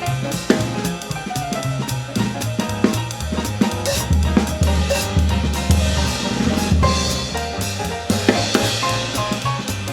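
Jazz piano trio playing: drum kit with snare, bass drum and cymbals over an acoustic double bass line and piano.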